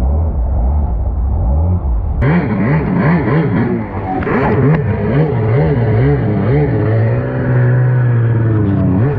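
Stand-up jet ski engine: a muffled low drone at first, then about two seconds in the engine revs up and down in quick repeated swoops, settling into a steady high rev near the end.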